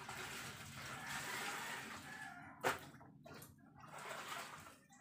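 Clothes being scrubbed and wrung by hand in water in a washing machine tub: water sloshing and wet fabric rubbing, with one brief sharper sound about two and a half seconds in.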